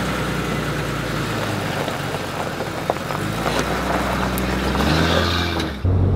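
Jeep Grand Cherokee engine running as the SUV pulls away from the curb, with a steady low engine hum. Just before the end it changes abruptly to a louder, even engine drone heard from inside the cabin while driving.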